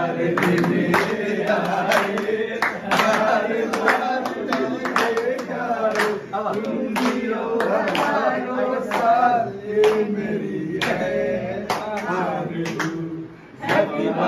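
A group of men singing a birthday song together, with hand claps keeping a steady beat about twice a second; the singing drops away briefly near the end.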